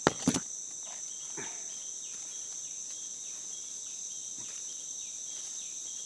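A steady high-pitched chorus of forest insects, with two sharp knocks right at the start and a few faint rustles after.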